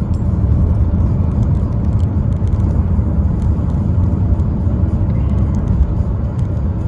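Steady low road and engine rumble heard from inside the cabin of a moving 2015 Chevrolet Cruze.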